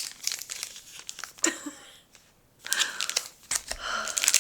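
Foil booster-pack wrappers and plastic packaging crinkling as they are handled, in irregular bursts of crackles and sharp clicks with a short pause about two seconds in.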